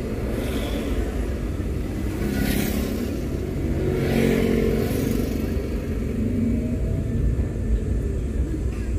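Road and engine noise of a moving car heard from inside the cabin: a steady low rumble, with two brief louder whooshes about two and a half and four seconds in.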